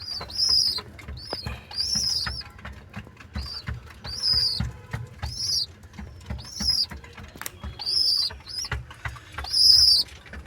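Pigeon squabs squeaking: short, high-pitched, arched cheeps repeated every second or two, about seven in all, over soft low thumps.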